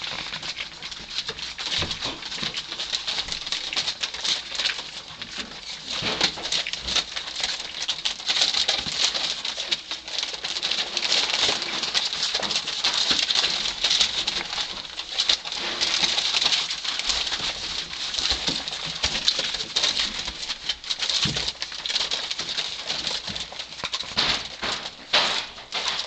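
A litter of three-and-a-half-week-old Labrador retriever puppies squeaking and whining as they wrestle in a heap. Their paws rustle and crackle on newspaper throughout.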